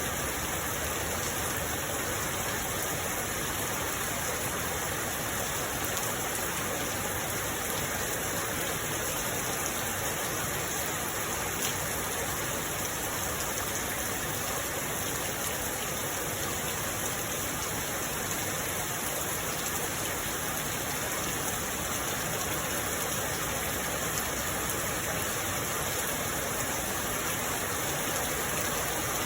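Steady rainfall: an even, unbroken hiss of rain with no single drops standing out.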